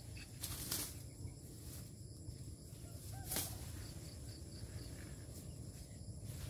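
A sickle slashing and dragging through dry sugarcane leaves while clearing out the cane: a few short, sharp swishes, two close together about half a second in and one more near the middle, against a low steady rumble.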